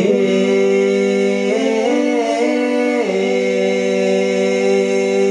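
A man's sung note held through a Boss VE-2 vocal harmonist, which adds harmony voices above his own, with reverb and delay on. The chord shifts to other pitches about a second and a half in, then settles back onto the first chord and holds.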